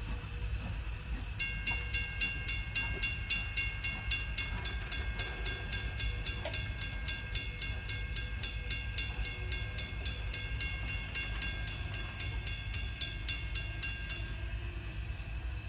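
Railroad grade-crossing warning bell ringing rapidly, about four to five strokes a second. It starts a second or so in and stops shortly before the end, over a steady low rumble.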